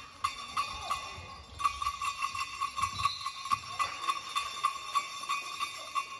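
A handheld bell rung over and over, with a few strikes in the first second and a half and then a steady run of about four ringing strikes a second.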